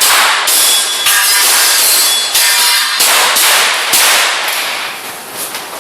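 Airsoft pistol shots fired in an irregular series, several sharp cracks a second or so apart, each followed by a brief hiss of echo.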